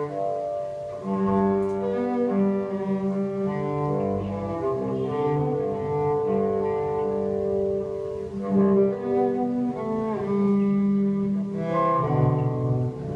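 Cello bowed live: a slow line of long held notes, changing pitch every second or so.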